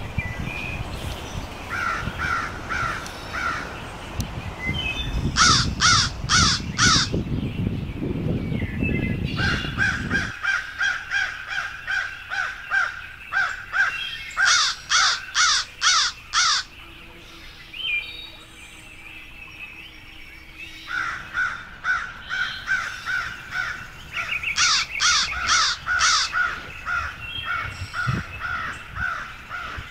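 Crows cawing in repeated runs of about five calls. A low rumble sits under the first third and stops abruptly about ten seconds in.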